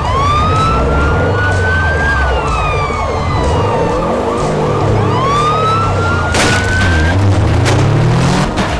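Siren sound effects: a siren wailing up and then slowly down, twice, over a second siren warbling fast. Near the end an engine revs up and there are a few sharp bangs.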